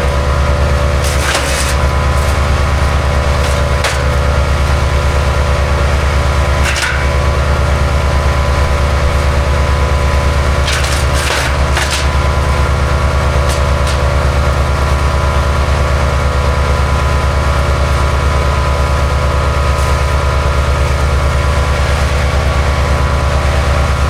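MechMaxx B200 8-inch wood chipper running steadily while branches are fed through it, with a handful of sharp cracks and splintering snaps as the wood is chipped, several of them bunched together in the middle.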